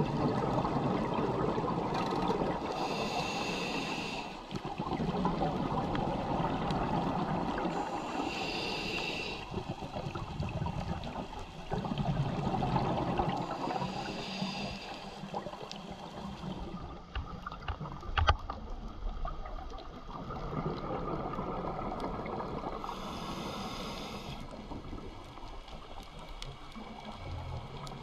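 Underwater sound of scuba breathing through a regulator: a rushing gurgle of exhaust bubbles, broken by a hissing inhale roughly every five seconds. A single sharp click sounds about eighteen seconds in.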